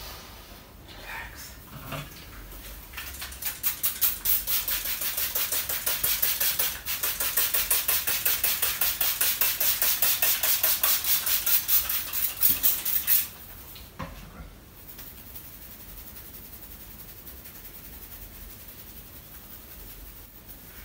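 Hands rubbing and working rapidly through a man's hair and over his scalp during a head massage. It makes a fast, crisp rhythmic rustle of several strokes a second that builds up a few seconds in and stops suddenly about two-thirds of the way through, followed by a single click.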